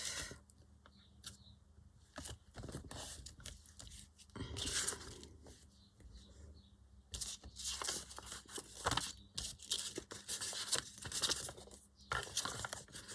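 Paper being handled: rustling and crinkling in irregular short bursts with scattered clicks, sparse at first and busier in the second half.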